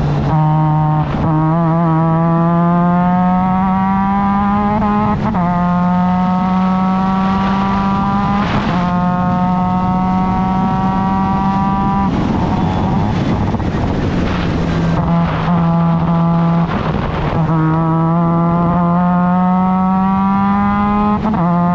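Formula Mazda race car's rotary engine under hard acceleration, its pitch climbing steadily and dropping back at gear shifts about a second in and about five seconds in. From about twelve to fifteen seconds in it comes off the climb into a rougher, noisier stretch, then rises through the gears again until near the end.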